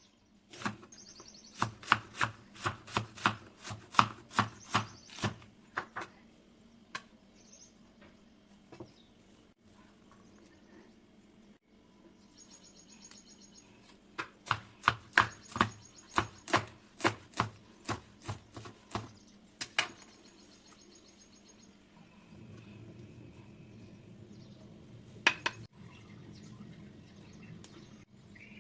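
Kitchen knife chopping on a cutting board in two runs of quick, even strokes, about three a second, with a single stroke near the end.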